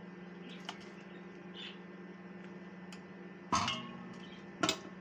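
Two sharp clinks of kitchen utensils knocking on cookware, about 3.5 s and 4.7 s in, each with a short ring, plus a few lighter ticks over a steady low hum.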